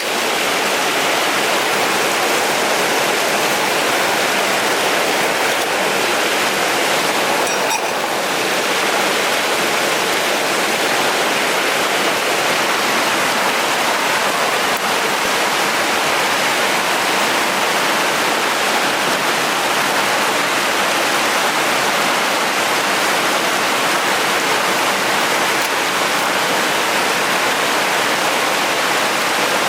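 Mountain stream rushing in a gorge: a loud, steady wash of flowing water.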